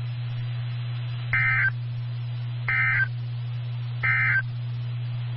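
Three short bursts of EAS/SAME digital data tones, evenly spaced about a second and a half apart, over a steady low hum and hiss. They are the end-of-message code that closes a weather radio alert.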